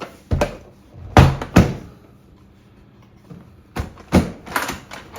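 Hard plastic carrying case of a PPR pipe welding machine being handled: a few sharp knocks and thuds, the loudest pair about a second in, then another cluster near the end.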